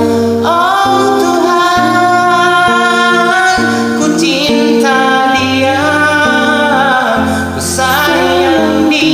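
Karaoke pop ballad: a voice sings a gliding melody over a backing track of held chords and a bass line.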